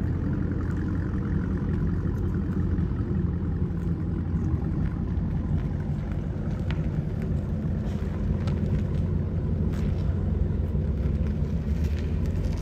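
Dodge Challenger SRT 392's 6.4-litre HEMI V8 idling steadily with a low, even rumble.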